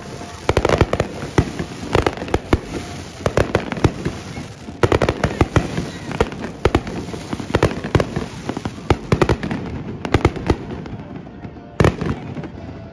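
Aerial fireworks shells bursting in a rapid, dense string of sharp bangs. The bangs thin out after about ten seconds, then one last big bang comes near the end.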